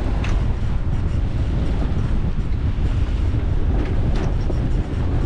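Strong wind buffeting the microphone aboard a sailboat under sail in 16 to 18 knot winds and swells. A few short rushes of water along the hull, near the start and about four seconds in.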